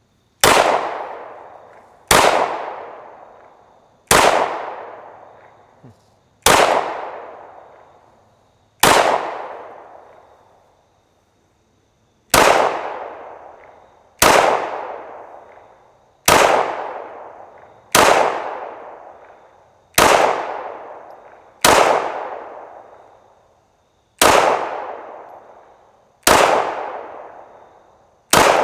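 Walther Creed 9mm pistol fired in slow single shots, about fourteen of them roughly two seconds apart with a longer pause about nine seconds in, each shot trailing off in a long echo. The pistol is being fired limp-wristed to try to force a malfunction, and it keeps cycling without a jam.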